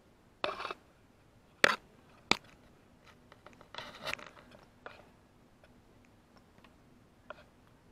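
A few scattered sharp knocks and short scraping rustles, about six in all, the loudest two close together about two seconds in.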